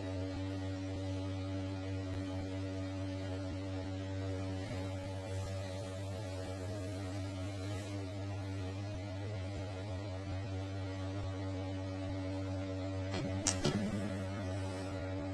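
A steady electrical hum made of several layered tones, with a brief knock about thirteen and a half seconds in.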